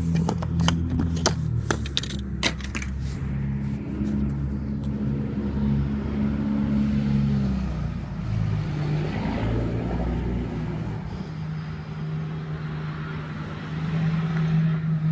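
A motor vehicle engine running close by, its low hum shifting in pitch, with a car passing about nine seconds in. A quick series of sharp clicks and rattles comes in the first three seconds.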